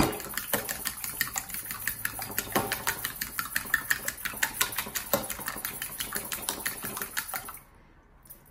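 Fork beating raw eggs in a bowl: rapid, even clicking of the metal tines against the bowl, with one louder knock right at the start. The clicking stops about seven and a half seconds in.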